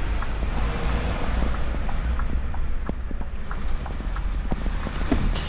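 Scania timber truck heard from inside the cab, its engine running with a steady low drone under road and wind noise, and scattered short clicks and knocks.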